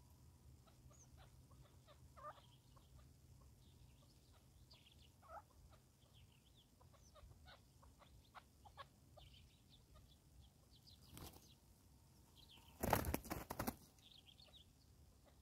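Chukar partridges giving soft clucks and short chirps, scattered throughout. About thirteen seconds in, a brief loud flurry of rapid wing flaps.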